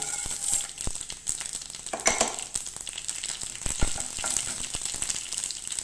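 Chana dal and urad dal sizzling in hot oil with mustard and cumin seeds in a non-stick kadai, with scattered sharp crackles. A wooden spatula stirs the seeds and dal through the oil, giving a few louder knocks.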